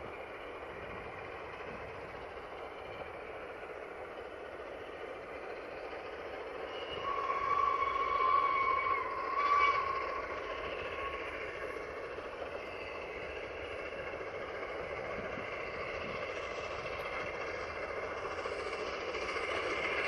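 Steam locomotive working a train, its exhaust a steady noise that grows louder as it approaches. About a third of the way in its whistle sounds, one long blast followed by a short one.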